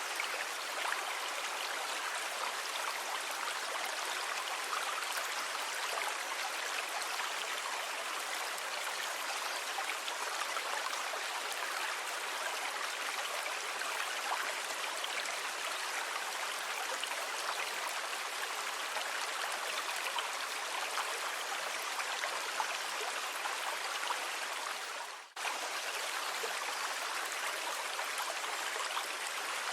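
Steady rushing and washing of sea water, even in level throughout. About 25 seconds in, the sound briefly fades out and cuts straight back in.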